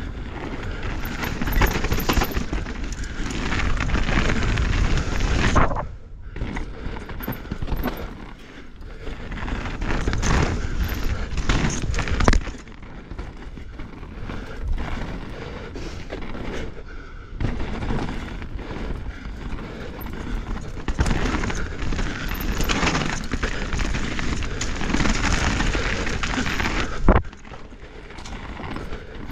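Mountain bike descending a dirt trail at speed: wind buffets the microphone with a heavy rumble, over the rush of knobby Maxxis Assegai tyres on dirt and thumps from bumps. The noise drops off abruptly a few times, about six, twelve and twenty-seven seconds in.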